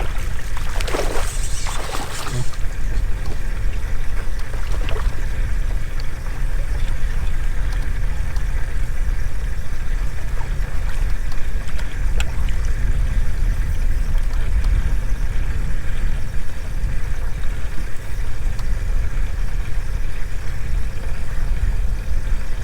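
Steady low rumble with a faint steady hum aboard a bass boat on the water. A short rushing, splash-like noise comes about a second in.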